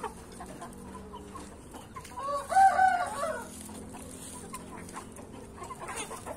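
A game rooster crows once, about two seconds in, a call lasting a little over a second, with softer chicken clucking around it.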